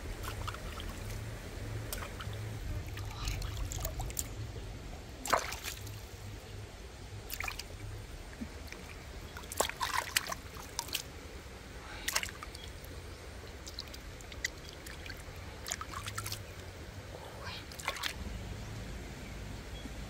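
Hands washing in shallow stream water: small splashes, sloshes and drips come every second or two over a steady low rumble, the sharpest about five and ten seconds in.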